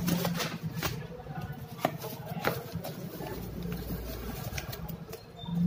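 Paper and cardboard packaging being handled: rustling, sliding and crinkling, with scattered short taps and clicks as an inner cardboard insert is pulled open.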